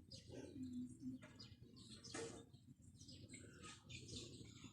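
Faint chirping of small birds in the background, with many short high calls scattered irregularly.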